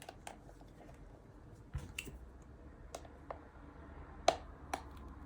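Faint, irregular small clicks and ticks, the sharpest about four seconds in, from a plastic opening tool being worked under the edge of an iPhone 11's screen to free it from its adhesive.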